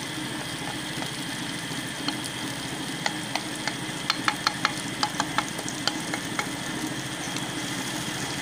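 Ground maize paste frying in oil and masala in a kadhai, with a spatula clicking and scraping against the pan as it is stirred: a run of about a dozen sharp clicks between about two and six seconds in. A steady low hum runs underneath.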